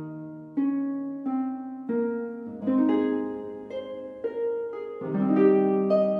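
Background music: a slow melody of plucked notes, each one starting sharply and fading, about two notes a second.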